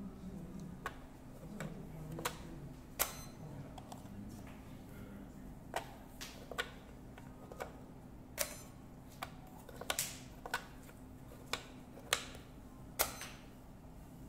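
Plastic Othello discs clicking down on the board and being flipped by hand, with the game clock's button pressed between moves: a run of about fifteen sharp, irregular clicks and taps.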